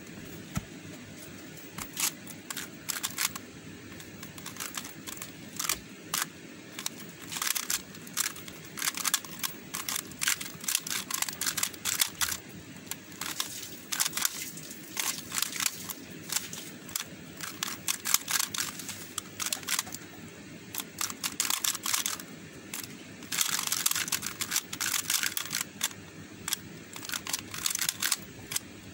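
Plastic Square-1 puzzle being turned quickly by hand: a fast, irregular stream of clicks and clacks as its layers turn and the middle slices. The clicking comes thickest about three-quarters of the way in.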